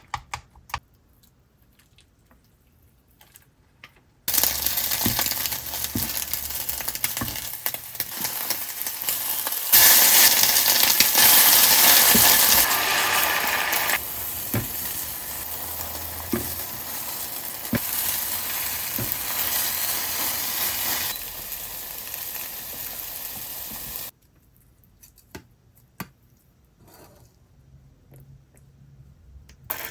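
Food frying in a pan, a steady sizzle that starts abruptly a few seconds in, swells louder for a few seconds in the middle and cuts off abruptly near the end, with occasional light clicks of a utensil stirring. Faint taps and clicks come before and after it.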